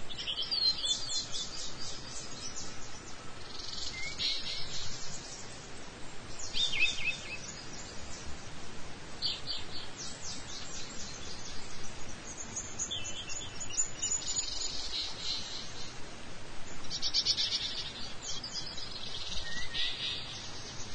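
Small birds chirping in quick high trills, a burst every few seconds, over a steady background hiss.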